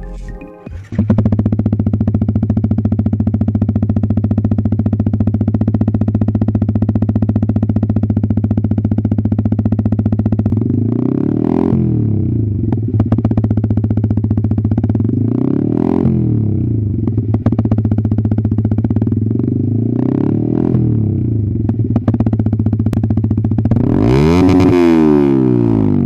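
Yamaha XSR 155 single-cylinder engine idling steadily through an SC Project 270mm slip-on exhaust with its silencer (dB killer) removed. It gives three short throttle blips, then a longer, higher rev near the end.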